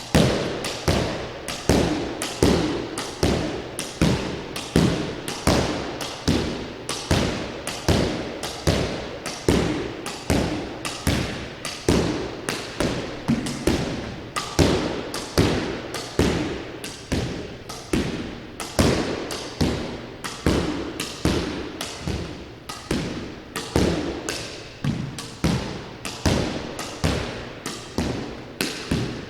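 Squash ball driven again and again with a racket in a solo rally, each sharp crack of racket and ball and smack off the court walls echoing briefly, about two hits a second in a steady rhythm.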